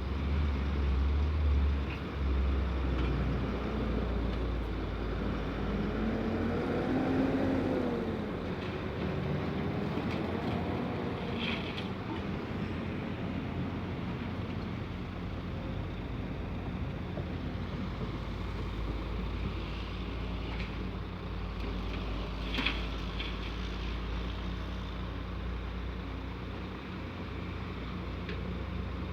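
Scania truck's diesel engine running with a steady low rumble. About four seconds in, a tone glides up and down in pitch for several seconds, and two brief sharp sounds come later.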